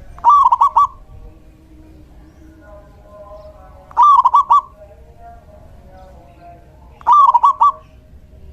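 Male zebra dove (perkutut) singing: three loud song phrases, each a quick run of stuttering notes lasting under a second, spaced about three seconds apart. Softer bird notes carry on between them.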